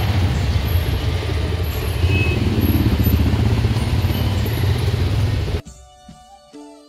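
Motorcycle engines and street traffic running steadily on a busy street. About five and a half seconds in it cuts off suddenly, replaced by quiet instrumental music.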